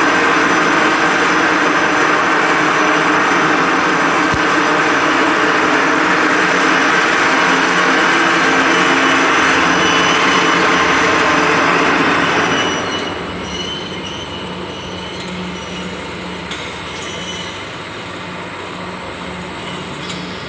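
Tortilla production line running: the motors and metal slat-chain conveyors of the dough sheeter and baking oven make a loud, steady machine noise with whining tones. About thirteen seconds in it becomes noticeably quieter, leaving a steady run with a low pulsing hum.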